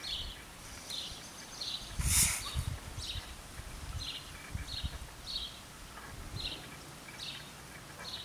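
A small bird repeating short high chirps every half-second to a second, over an irregular low rumble; about two seconds in, a brief loud burst of noise covers everything.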